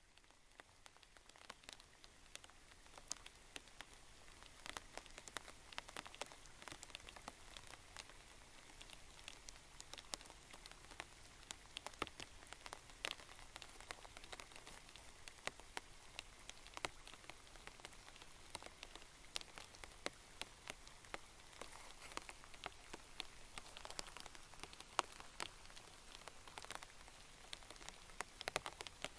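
Rain falling, a steady hiss with many separate drops ticking close by at irregular moments; it fades in over the first few seconds.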